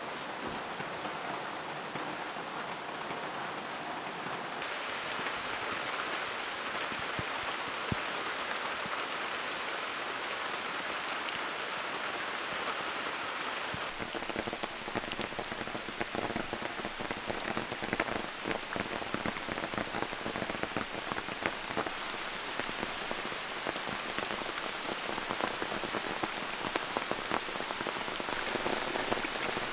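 Steady rain falling on grass and wet ground, a continuous patter of many drops that grows denser and closer about halfway through.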